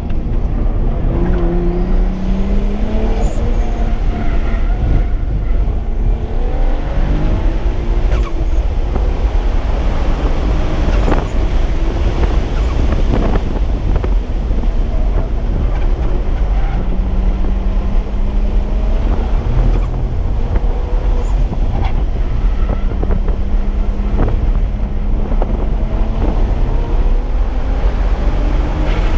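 Single-turbo BMW 335i's straight-six engine running on track at speed. Its pitch climbs and falls repeatedly through the first several seconds as it accelerates and shifts, then holds fairly steady at a lower cruising pitch through the second half, over heavy wind and road rumble.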